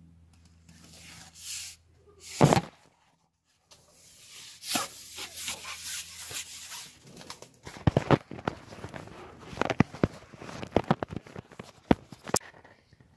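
Handling noise as the camera is picked up and moved about near carbon pole sections on a wooden platform: a sharp knock about two and a half seconds in, then a busy run of clicks, taps and rubbing.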